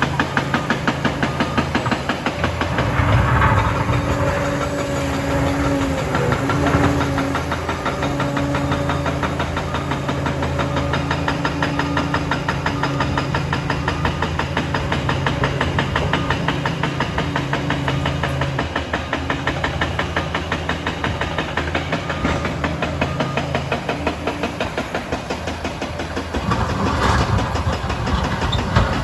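Liebherr PR 746 crawler dozer's diesel engine running steadily, with two short louder surges of working noise, one about three seconds in and one near the end.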